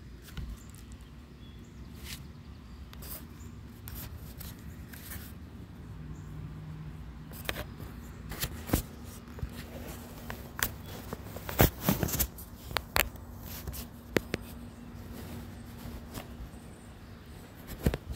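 Handling noise on a phone's microphone: irregular clicks, knocks and fabric scuffs as the phone is moved and covered, over a low rumble, with a cluster of sharper knocks in the middle.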